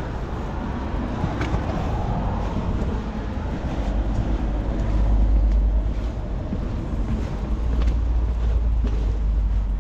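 Wind buffeting the microphone of a camera on a moving bicycle: a deep, steady rumble that swells about halfway through and again near the end.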